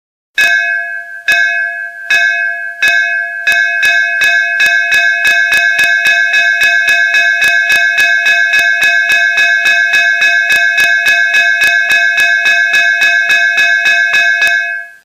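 Traditional metal school bell sound from an automatic school bell. A few slow, spaced strikes, then rapid, even strikes at about three to four a second, the bell ringing on between them. It cuts off suddenly near the end.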